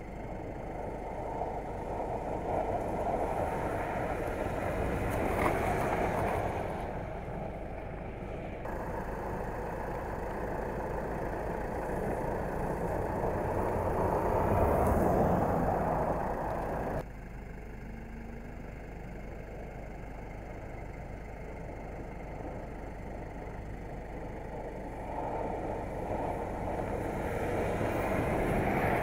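Fiat 500X driven sliding on snow-covered ice: engine and tyres with snow spraying, swelling louder three times as the car comes close. The sound changes abruptly twice where shots are joined.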